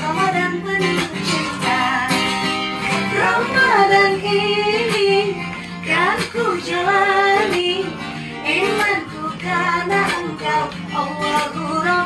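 A woman singing a melody, accompanied by an acoustic guitar.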